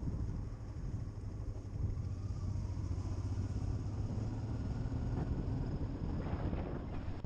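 Motorcycle engine running at a steady cruising speed under way, heard from the rider's seat as a low, steady hum.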